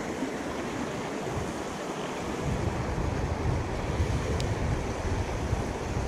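Fast creek water rushing over rocks in rapids, a steady hiss, with wind buffeting the microphone from about two and a half seconds in.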